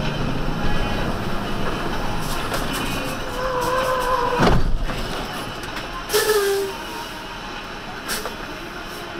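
Truck cab noise while driving: steady engine and road rumble, with a tone held for about a second just before the middle, then a sharp thump and a shorter, slightly falling tone about a second and a half later.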